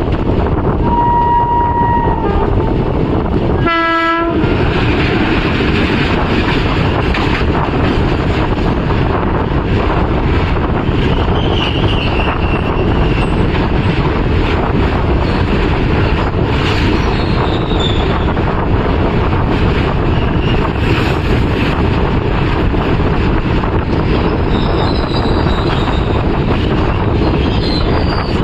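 Passenger train running at speed, heard from on board: a steady loud rumble of wheels and rail noise, with a short horn blast about four seconds in.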